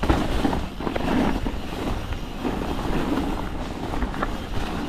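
Wind noise on the microphone over the rumble of a mountain bike riding on frozen, rock-hard ground.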